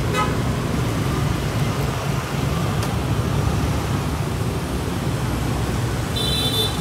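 Steady street traffic noise from engines going by, with a brief high-pitched beep near the end.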